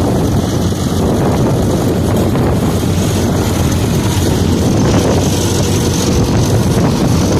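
Tractor engine running steadily under load, a constant low-pitched drone.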